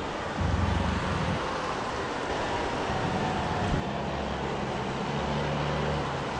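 Ansaldo Breda M32 low-floor tram passing, a steady rumble with a faint whine, mixed with city traffic noise and wind gusting on the microphone. The sound changes abruptly about four seconds in.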